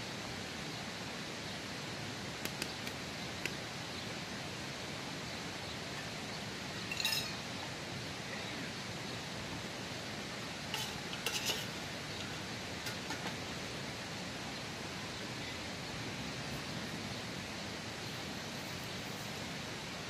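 A metal pot lid and stirring spoon clinking against a cooking pot, a few short clinks scattered through, over the steady rush of running stream water.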